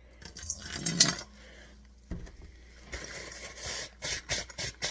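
Hands rubbing and handling a wet nylon Cordura pouch, the fabric rustling and scraping in short irregular bursts that grow denser in the second half. A brief low murmur of voice comes about a second in.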